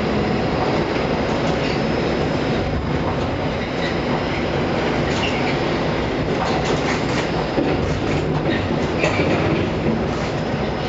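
Ship-to-shore container crane machinery running, heard from up on the crane: a loud, steady mechanical rumble with scattered clicks and squeaks, as the hoist works the wire ropes holding the spreader.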